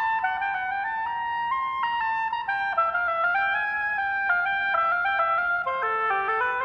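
Solo oboe playing a quick line of short notes that step up and down, dropping to lower notes near the end.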